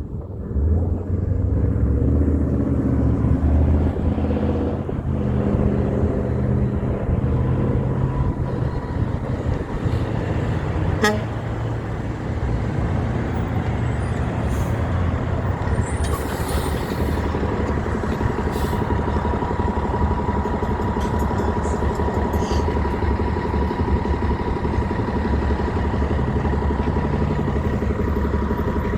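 Heavy trucks running close by: a loud, low engine drone that swells in the first seconds and stays steady in traffic noise. A steady thin high tone joins in about twenty seconds in.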